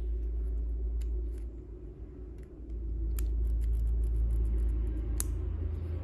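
Small metal clutch parts of a model engine clicking as they are handled and fitted together by hand: scattered light clicks, thickest in the second half, with one sharper click about five seconds in, over a steady low hum.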